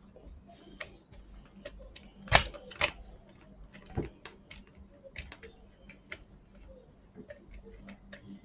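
Scattered light clicks and ticks of a screwdriver turning a long screw out of a plastic blower housing. There are a few sharper knocks, two close together about two and a half seconds in and another at about four seconds.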